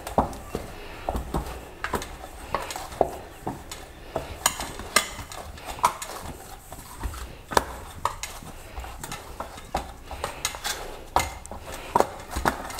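Irregular clinks and knocks of a steel plate and wrist bangles as a hand kneads a ball of rice-flour dough on the plate, about one to three sharp clicks a second.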